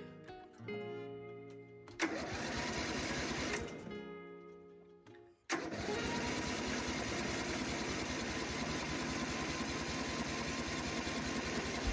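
Lawn mower's small petrol engine being started: a burst of engine noise about two seconds in dies away, then it catches abruptly about five and a half seconds in and runs steadily. The engine now fires after a no-spark fault was repaired. Guitar music fades out under it early on.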